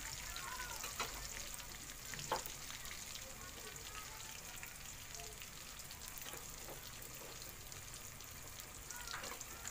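Pork, garlic and sliced onion sizzling in hot oil in an aluminium wok, a steady frying hiss, with a few sharp knocks about one and two seconds in and again near the end.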